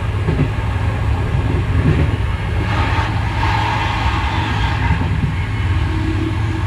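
Train running along the line, heard from on board: a steady low rumble of engine and wheels on rail, with a louder rushing noise swelling about three seconds in.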